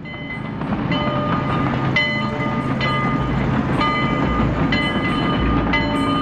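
Train running on rails: a steady rumble that fades in over the first second, with short metallic rings coming irregularly, about twice a second.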